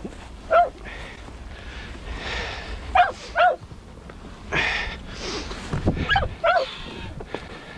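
A mink-hunting dog giving short, high yelps, mostly in quick pairs, three times, with rustling noise in between.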